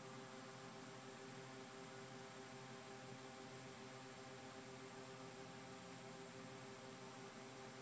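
Near silence: a faint steady hum and hiss with a thin high whine, unchanging throughout.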